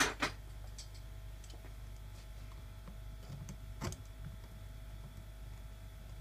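Two sharp clicks right at the start, then small knocks and taps of a copper pipe coupling and slip-joint pliers being handled on a rubber bench mat, loudest about four seconds in, over a steady low hum.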